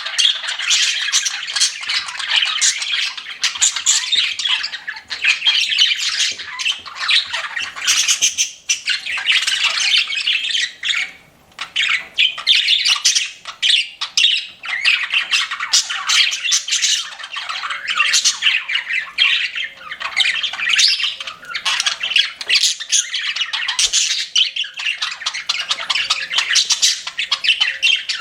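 Several pet budgerigars chirping and chattering without pause, a dense mix of quick warbles, squawks and clicks, with a short lull about eleven seconds in.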